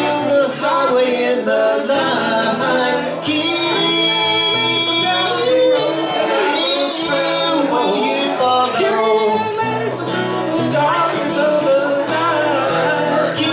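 Live solo performance: a man singing into a microphone while strumming an acoustic guitar.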